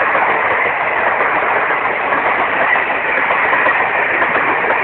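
Passenger train passing at speed: a loud, steady rush and clatter of wheels on the rails.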